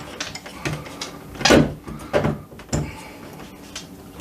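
Doorknob hardware knocking and clicking against the door as the outside knob is slid in through the latch: a few sharp knocks, the loudest about a second and a half in.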